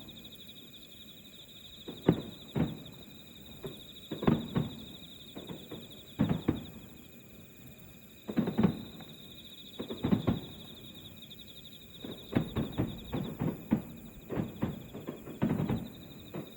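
Distant fireworks bursting, dull booms every second or two, then a rapid run of many bursts from about twelve seconds in. Insects chirp steadily underneath.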